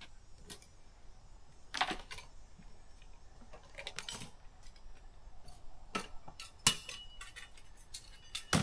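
Camp kitchen gear being handled and set down on a picnic table: scattered clinks and knocks of dishes and utensils. A sharp clink with a short ring comes about two-thirds of the way through, and another knock near the end.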